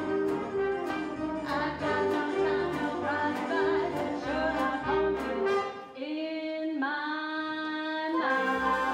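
Live pit band playing a show tune with a steady drum beat; about six seconds in the beat stops and the band holds long chords, then picks up again near the end.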